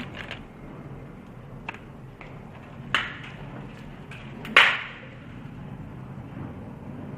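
A few sharp clicks and knocks of things being handled at the table, the loudest about four and a half seconds in with a short hiss after it.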